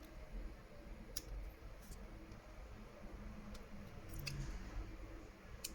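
About half a dozen light, sharp clicks and taps, spaced irregularly a second or so apart, from small hand tools working on the internal parts of an opened smartphone.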